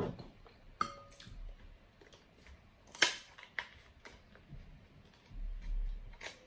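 Kitchen scissors cutting into the shell of a king crab leg: a few separate sharp snips and cracks, the loudest about three seconds in.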